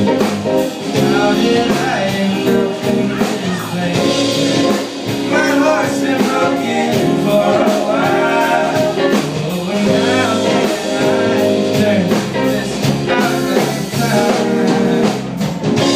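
Live band playing a song: singing over bass guitar, guitars and drums.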